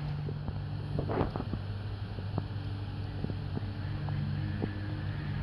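Steady low machine hum, like a motor running, with a few light clicks and a short rustle about a second in.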